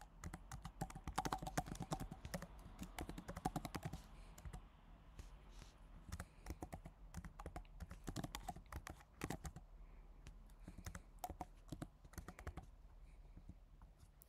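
Computer keyboard typing: a fast run of keystrokes for the first few seconds, then slower, scattered keystrokes.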